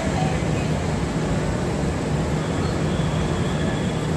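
Steady low hum and rumble of a railway station platform, from trains standing at the platforms.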